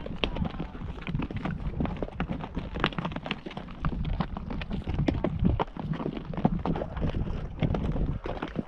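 Horse hooves clopping in an irregular run of strikes, several a second, with wind rumbling on the microphone.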